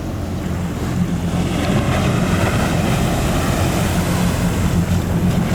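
Boat engine running steadily at a low idle, with wave and wind noise over it.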